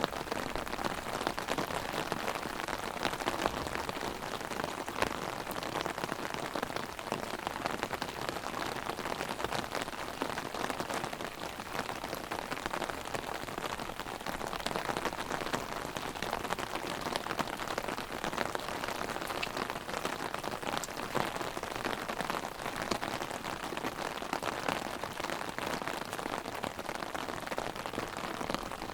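Heavy rain hitting an umbrella: a dense, steady hiss of rain with many sharp taps of single drops.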